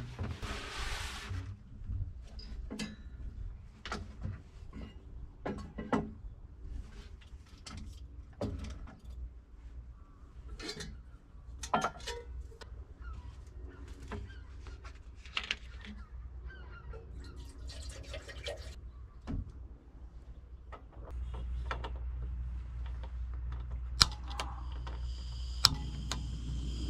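Camping gear handled on a wooden table, with scattered knocks and clatter. Near the end a small canister gas stove takes over: a steady rushing, two sharp clicks, and a high hiss.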